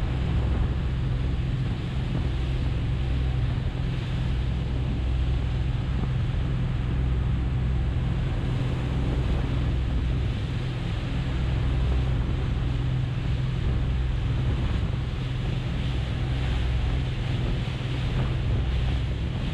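Sea Ray Sundancer cruiser under way: a steady low drone from its inboard engine, with water rushing along the hull and wind buffeting the microphone.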